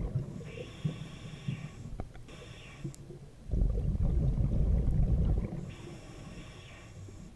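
Scuba diver breathing through a regulator underwater: a hissing inhale, then the low bubbling rumble of an exhale about halfway through, then a second hissing inhale.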